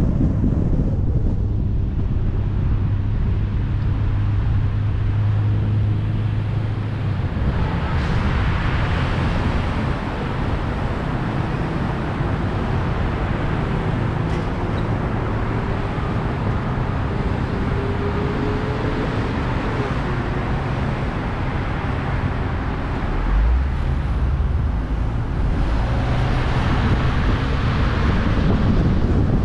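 Honda Odyssey minivan driving, heard from a camera on its roof: a steady low rumble of road and engine noise with wind rushing over the microphone. The hiss swells twice, about eight seconds in and near the end, and there is a short low thump about twenty-three seconds in.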